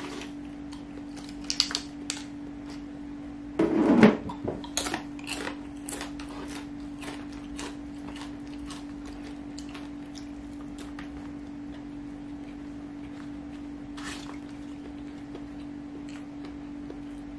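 Close-up eating sounds: crunchy kerupuk crackers bitten and chewed, with fingers scraping rice on a metal tray. The loudest crunch comes about four seconds in, followed by a quick run of crackly clicks, then sparser clicks, all over a steady low hum.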